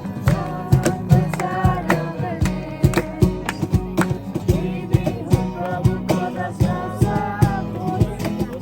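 Background music with a steady beat, guitar and a melodic voice or lead line.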